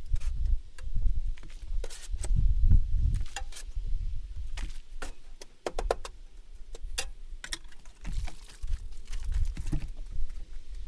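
Wind rumbling on the microphone in uneven gusts, with scattered sharp clicks and taps.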